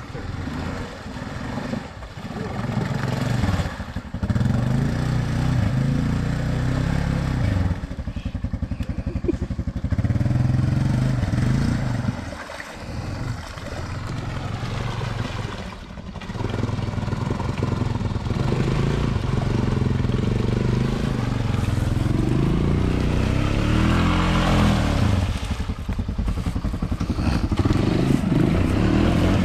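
ATV engine revving unevenly as the quad churns through swamp water and mud, easing off briefly a couple of times. Near the end there is a spell of splashing as it ploughs through the water.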